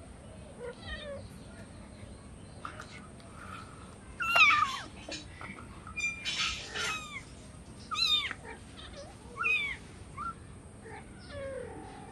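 Kitten meowing for food, a string of separate high calls that mostly fall in pitch, the loudest about four seconds in.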